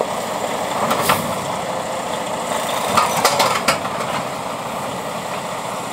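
Dump truck's diesel engine running steadily, with a few short knocks about a second in and again around three seconds in.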